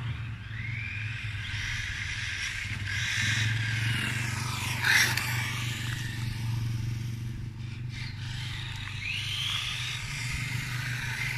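Electric-powered Team C TS4 RC short course truck running up and down the street. Its motor whine rises with each burst of throttle, over tyre noise on the asphalt. It passes close by once, about five seconds in, which is the loudest moment.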